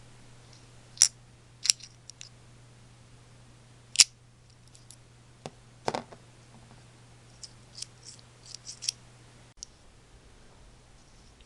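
Sharp metallic clicks and clinks of hand tools and small metal parts being handled during disassembly of the scooter's starter clutch: a few single strokes, then a quicker run of lighter clicks near the end.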